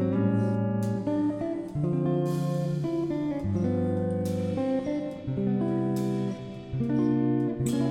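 Background music led by a strummed and plucked acoustic guitar, with notes and chords changing every second or so.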